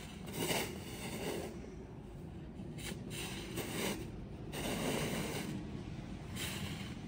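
Two snow shovels, one a red plastic pusher, scraping and pushing snow along a path, in about four drawn-out scrapes of a second or so each.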